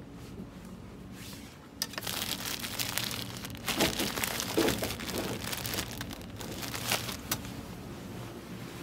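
Crinkling and rustling for about five seconds, starting about two seconds in, with a few sharp clicks, over a steady low hum.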